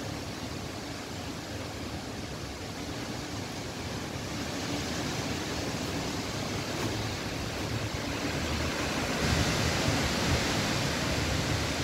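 Strong dust-storm wind gusting through trees: a steady rushing that grows louder from about four seconds in and is strongest near the end.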